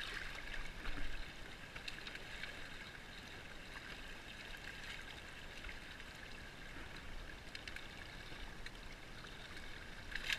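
River water flowing steadily past a float tube, with splashing from a hooked rainbow trout thrashing at the surface about a second in.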